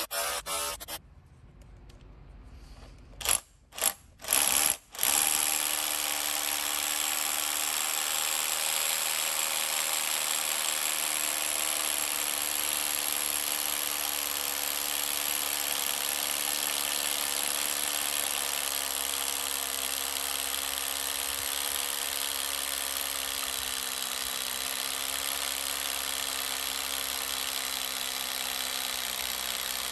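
Bosch UniversalHammer 18V cordless SDS-plus rotary hammer drilling into the ground. It starts in a few short bursts, then runs as a steady buzzing drone from about five seconds in.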